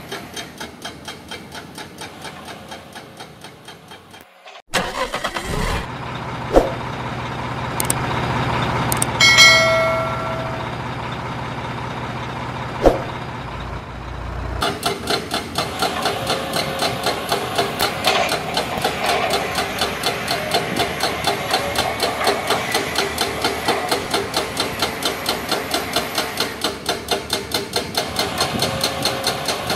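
Model excavator engine sound, a rhythmic mechanical pulse of several beats a second. In the middle a deeper, steady engine drone takes over for about ten seconds, with a couple of sharp knocks and a short horn-like toot near its midpoint.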